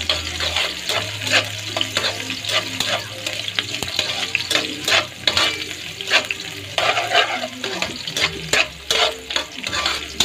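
Sliced ginger and onion sizzling in oil in a wok, stirred with a spatula that scrapes and clacks against the pan many times over.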